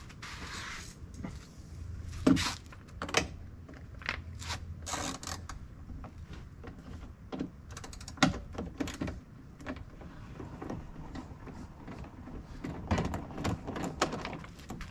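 Irregular clicks, taps and scrapes of a screwdriver turning a Torx screw out of a van's plastic door-panel handle recess, with the plastic trim creaking.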